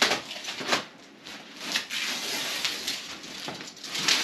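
Rustling, scraping and crinkling as a packed bundle of acoustic foam panels is cut open and the foam pieces are pulled apart, in irregular strokes.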